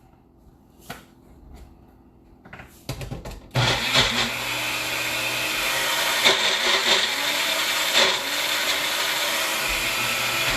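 Magic Bullet blender running steadily as it purées chickpeas, lemon, garlic and tahini into hummus. It starts about three and a half seconds in, after a few light clicks and knocks.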